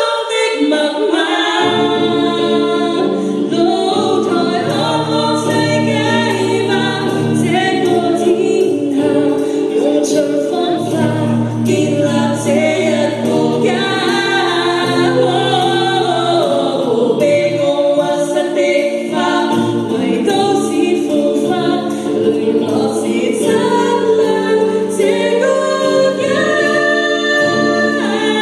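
A choir singing in several-part harmony, with low bass notes coming in under the upper voices about two seconds in.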